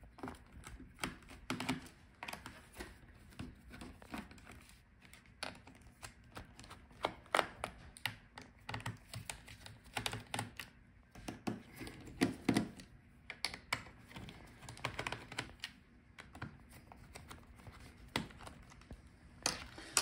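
Small screwdriver clicking and ticking against the bottom-case screws of a Dell Latitude 5320 laptop as they are loosened, with light taps of the tool and hands on the metal case. Faint, irregular clicks.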